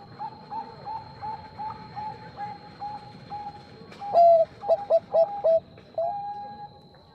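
Zebra dove (perkutut bangkok) cooing: a run of soft short notes, about three a second, then about four seconds in a louder burst of quick clipped coos ending in one held note. A faint steady high whine runs underneath.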